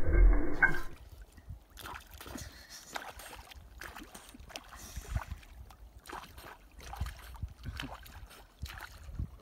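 Water lapping and splashing softly around a swimming dog as it paddles. It opens with under a second of louder, muffled sound that cuts off suddenly.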